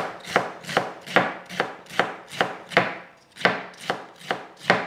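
Kitchen knife slicing through a bunch of crisp celery stalks onto a wooden chopping board: an even rhythm of crunching cuts, each ending in a knock on the board, about two or three a second.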